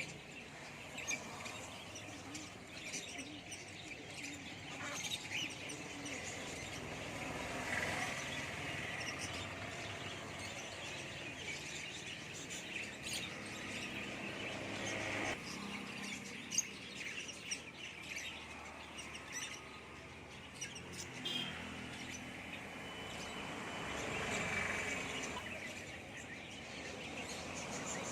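Small caged birds chirping and tweeting, many short scattered calls overlapping one another.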